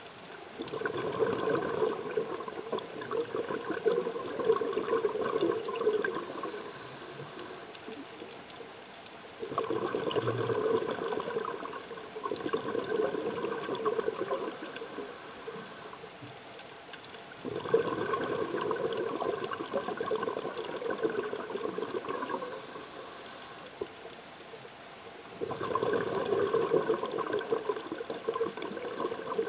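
Scuba diver breathing through a regulator underwater: four long bubbling exhalations, about every eight seconds, each followed by a short high hiss as the regulator delivers the next breath.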